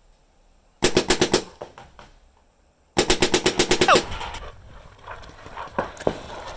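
2002 Warped Sportz Dark Angel LCD electropneumatic paintball marker firing rapid strings of shots: a quick burst of about six about a second in, a pause, then a longer burst of about ten in one second. After that the sound changes to a quieter outdoor background with a few scattered fainter pops.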